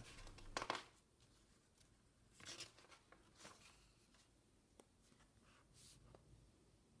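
Faint rustling of paper pages as a printed manual is leafed through and opened flat, a few soft brushes at irregular moments.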